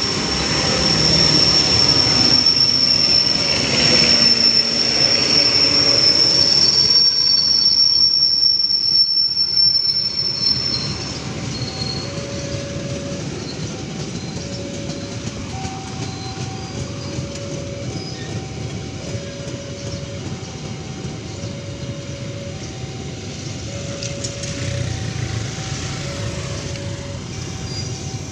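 A KAI passenger train, diesel-electric locomotive and coaches, passes close by at speed: loud wheel-on-rail rolling with a high steady wheel squeal for the first ten seconds or so. Then the coaches' rumble goes on more quietly under a level-crossing warning alarm sounding two alternating tones, one pair about every two seconds.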